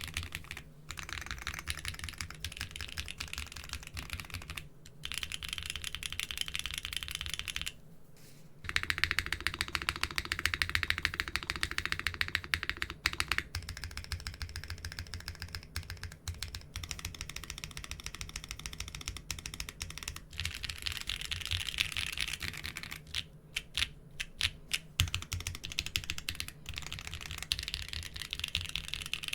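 Fast typing on a modded mechanical keyboard with doubleshot keycaps, a dense run of key clacks. It stops briefly about eight seconds in, then resumes a little louder on a different keycap set.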